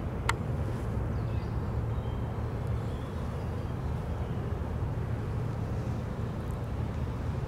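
Steady low engine rumble of inland cargo ships on the waterway, with one sharp click about a third of a second in.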